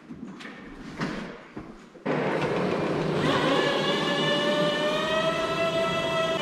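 A few faint knocks, then a Toyota forklift running; about a second later its hydraulic lift starts a high whine that rises briefly and holds steady as it raises a snowmobile on a pallet.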